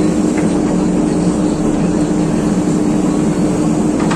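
Diesel engine of a JCB excavator running steadily with a constant drone.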